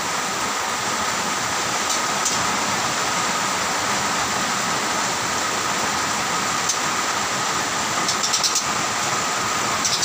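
Steady hiss of heavy rain, with a few short high chirps from a white-rumped shama, one about two seconds in and a quick run of them near the end.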